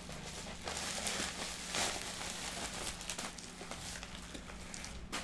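Plastic bubble wrap rustling and crinkling in irregular bursts as a cardboard lamp carton is handled and lifted out of it.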